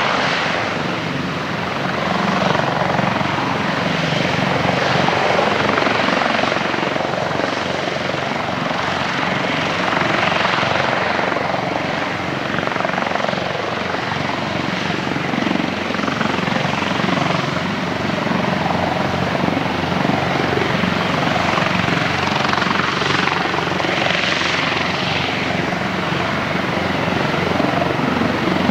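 Military helicopter's rotor and turbine engines running loud and steady, with a low rotor beat under the whine that swells and eases a couple of times.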